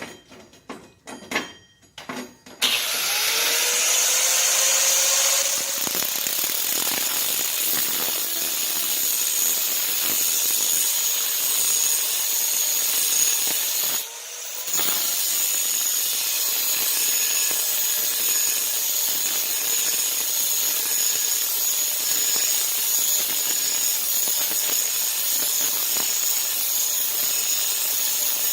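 A few light handling clicks, then a power tool with an abrasive metal cut-off wheel spins up about two and a half seconds in and cuts into steel bar stock, a steady grinding noise with a high whine. It drops off briefly about halfway and goes straight back into the cut.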